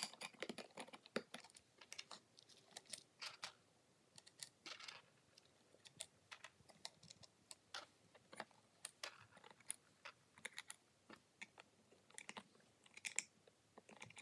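Scattered faint clicks and taps of hard plastic toy parts being handled: small pink clips pressed onto the rims of a clear plastic two-layer cake mold.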